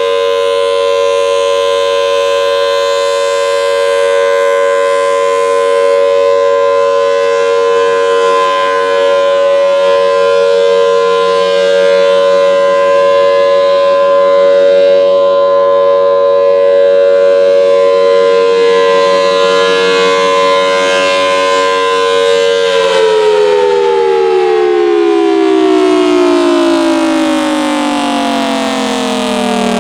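Federal Signal Thunderbolt 1003 outdoor warning siren sounding a steady Alert tone, loud and unwavering in pitch. About 23 seconds in the pitch starts to fall steadily as the siren winds down at the end of its 3-minute Alert cycle.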